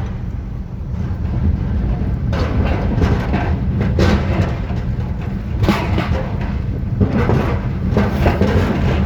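A moving vehicle's steady low rumble, with irregular louder rushing bursts every second or so.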